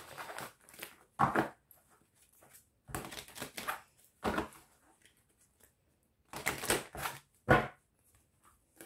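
A dog giving about half a dozen short barks and whines, with quiet gaps between them.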